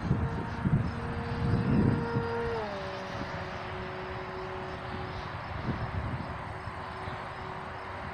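Motor and propeller of a 200% scale Flite Test Cub radio-controlled model plane flying overhead: a steady drone that drops in pitch about two and a half seconds in and holds at the lower note. Wind rumbles on the microphone underneath.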